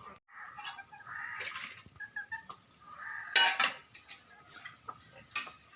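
Chickens clucking in short calls, with sharp clinks of metal pots and utensils; the loudest clink comes about three and a half seconds in.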